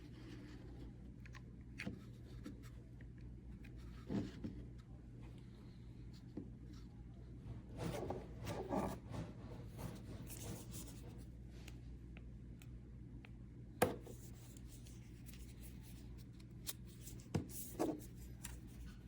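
Hands handling small tools and parts: scattered rubbing, scraping and light clicks over a low steady hum, with one sharp click about two-thirds of the way in.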